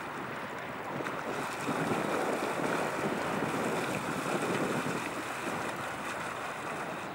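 Steady rush of river water with wind buffeting the microphone, swelling a little in the middle.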